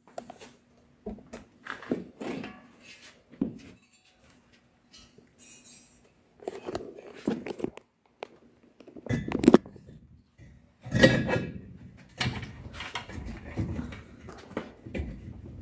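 Intermittent knocks, clinks and thunks of tools and parts being handled, with two louder thumps a little past halfway.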